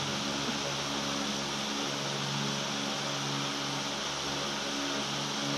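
Electric fan running steadily: an even airy hiss over a constant low motor hum.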